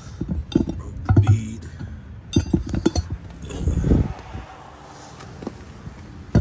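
Metal clinks and knocks from a minibike's rear wheel with a steel sprocket being handled and turned over on pavement, with a rough scrape about four seconds in.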